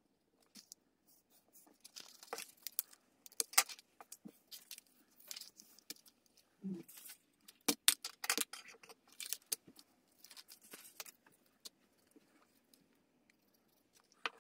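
Hands handling paper and craft supplies on a tabletop: scattered paper rustles with light taps and clicks, busiest in the middle, and a brief low squeak partway through.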